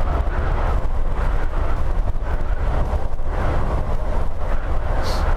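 Double-decker coach driving on a wet highway, heard from the driver's cab: a steady low rumble of engine and tyres with a hiss from the wet road. A brief high-pitched squeak sounds near the end.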